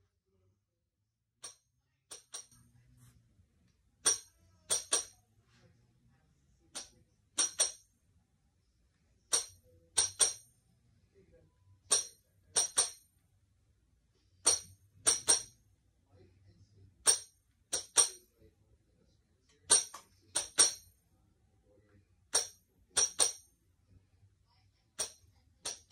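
Tambourine played with the hands, each strike a short crisp hit with the metal jingles ringing briefly. The strikes come singly and in quick pairs with rests between, in the uneven rhythm of an orchestral excerpt.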